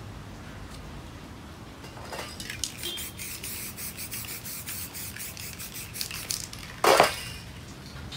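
Aerosol spray-paint can sprayed in a run of short, quick puffs, then one louder burst near the end.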